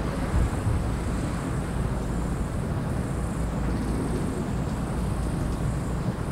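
Distant fireworks: rows of ground fountains (gerbs) firing, heard as a steady low rushing noise with a couple of sharper pops under a second in.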